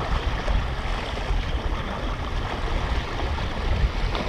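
Steady rushing noise of wind buffeting the microphone over lapping water, with a deep low rumble and no distinct knocks or tones.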